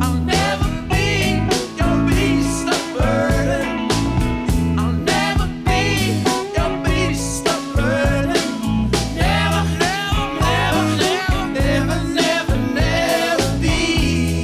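Background music: a song with a steady beat, guitar and singing.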